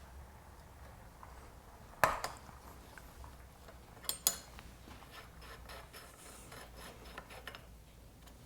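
Small metal carburetor parts and hand tools clinking as the carburetor caps are worked off. There is one sharp clink about two seconds in, two more about four seconds in, then lighter ticks and rubbing.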